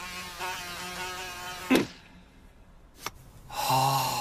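Cartoon soundtrack: a short wavering musical tone, a sharp knock about a second and a half in, then a brief pause and a low wordless murmur from a character near the end.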